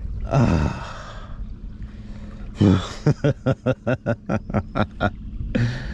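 A man chuckling: a short sigh with falling pitch, then a run of about a dozen quick laugh pulses, about five a second, over a steady low hum.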